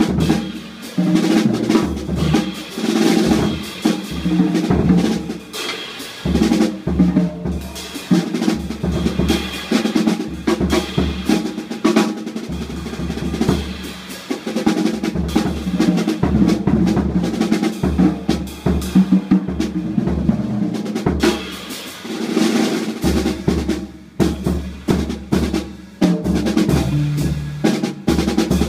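Free jazz trio playing live: a drum kit is played busily with rolls and rim hits over upright double bass notes. A hollow-body electric guitar joins near the end.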